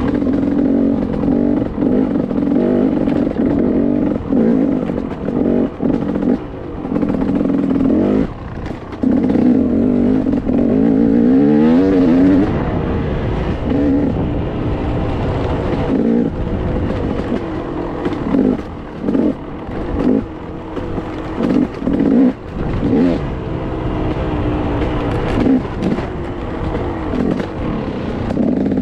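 Enduro dirt bike engine under constant throttle changes, revving up and easing off again and again as it is ridden over rough, rutted dirt trail, with pitch glides such as a steady rise about nine to twelve seconds in.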